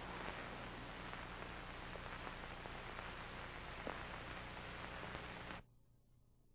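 Steady hiss with a low hum from the soundtrack of a worn, old videotape, with a faint tick near four seconds in. It cuts off suddenly about five and a half seconds in.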